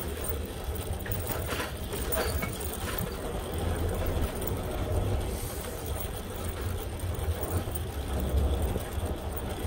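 Wind rumbling on the microphone while riding a bicycle, a steady low buffeting under a haze of street traffic noise, with a few light clicks or rattles in the first few seconds.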